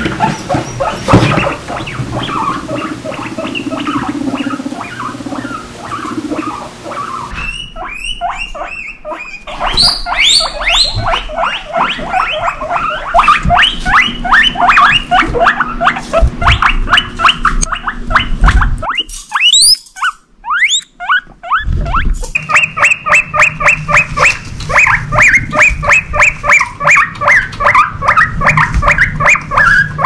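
Guinea pigs wheeking: loud, high-pitched squealing whistles repeated several times a second in long runs, starting about seven seconds in, with a short break near twenty seconds where a few rising whistles are heard. Wheeking is an excited call. Before the wheeking the sound is quieter and lower.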